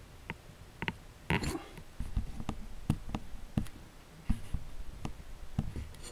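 Irregular light clicks, taps and knocks of handling noise, as the camera is adjusted and zoomed in by hand.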